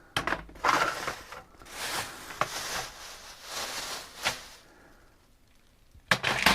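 Hands handling tools and small parts on a workbench: irregular rustling and scraping with a few sharp clicks, a short lull, then a couple of sharp clicks near the end.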